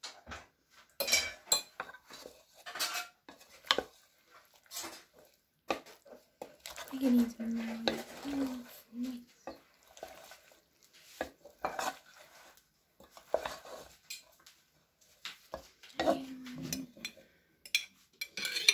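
A wooden spoon and a metal spoon stirring fusilli pasta, ham and mushrooms into thick white sauce in a metal pot. They give irregular knocks, clicks and scrapes against the pan.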